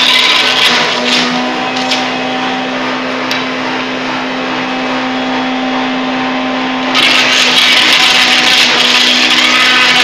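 Electric wood chipper running with a steady hum. The loud shredding hiss of wood being chipped dies down about a second in while it runs empty. The hiss returns abruptly about seven seconds in as a wooden strip is fed into the hopper.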